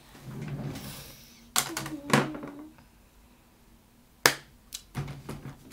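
Several sharp clicks and knocks of small objects being handled and set down on a desk, the loudest about four seconds in, with some rustling near the end.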